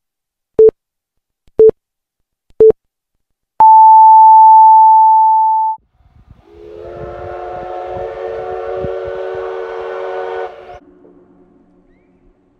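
Japanese-style radio time signal: three short beeps a second apart, then one long beep an octave higher. A steam locomotive whistle then sounds one long blast of several pitches at once. It swells in, runs about four seconds and cuts off, leaving a fainter lower tone that fades away.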